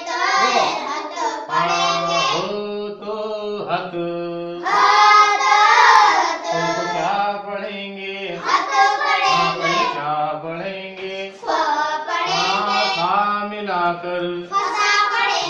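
A single voice chanting a sing-song recitation in steady held notes, phrase after phrase with short breaks between them, in the manner of a spoken-sung Urdu letter-joining drill.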